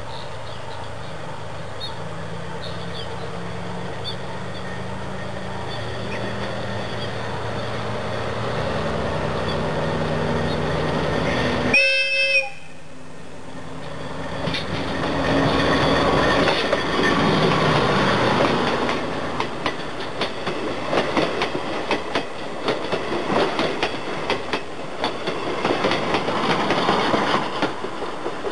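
A DE10-type diesel locomotive drawing closer with its engine running, then a short horn blast about twelve seconds in. It then passes close by, its wheels clattering over the rail joints.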